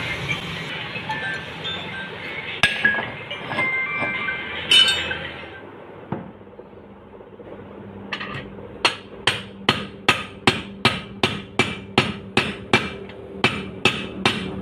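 Background music with a couple of metal clinks, then steady hammer blows on a steel pipe drift, about two or three a second, driving a ball bearing onto a motorcycle crankshaft.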